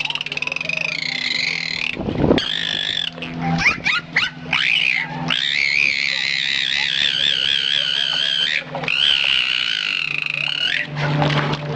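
A pet giving long, high-pitched wavering calls several seconds each, broken by a run of short, sharp sounds between about two and five seconds in.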